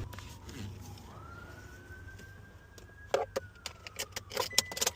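Metal keys and locksmith tools clicking and rattling, a quick cluster of sharp clicks about three to five seconds in, over a faint whine that rises and then slowly falls.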